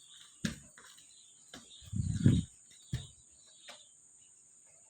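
Steady high-pitched insect trill of crickets, with a few scattered knocks and bumps, the loudest about two seconds in.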